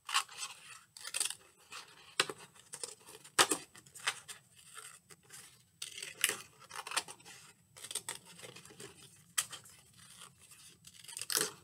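Scissors snipping through thin paper: a string of short, irregular cuts as square notches are cut back and forth along a paper strip.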